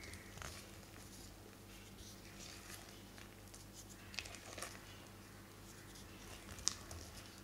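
Silicone spatula folding blueberries into thick muffin batter in a glass bowl: faint soft squishing and scraping, with a few light clicks against the glass, the sharpest near the end.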